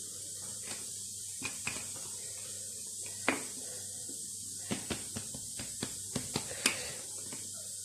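Soft scattered taps and rubbing from hands and a wooden rolling pin working a round of kesra dough on a cloth towel over a marble counter, over a steady faint hiss. The taps are sparse at first and come more often in the second half.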